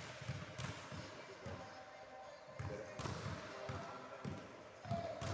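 Tennis play on a wooden sports-hall floor: repeated dull thuds of the ball bouncing and of footsteps, with a sharper racket hit about three seconds in and another near the end.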